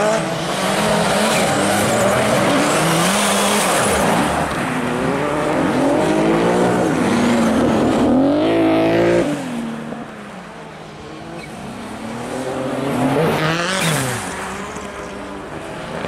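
A rally car's engine revving hard as it slides around a snow-covered ice track, its pitch rising and falling with throttle and gear changes. The sound is loud at first, falls away about ten seconds in, then swells again as a car comes close near the end.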